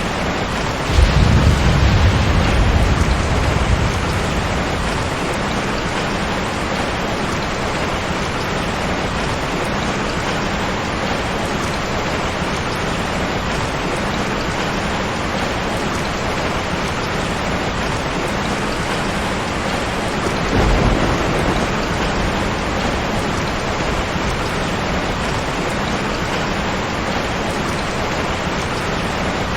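Steady heavy rain, with a clap of thunder about a second in that rumbles for a few seconds, and a softer rumble of thunder about two-thirds of the way through.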